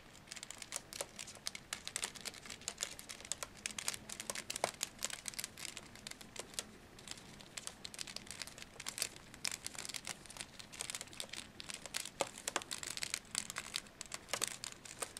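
Irregular crinkling and crackling made of many small, quick clicks, keeping up throughout.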